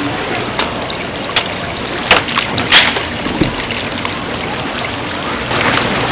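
Water running and trickling steadily, with a handful of sharp clicks and clacks on top, the loudest a little under halfway through.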